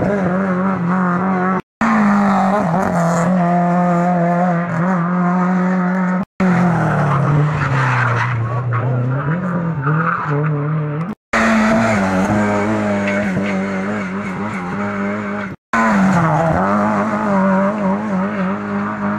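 Lada saloon rally cars driven flat out, engines held at high revs with brief dips in pitch as the drivers lift and shift, with some tyre squeal. The sound is chopped into several pieces by short dropouts to silence.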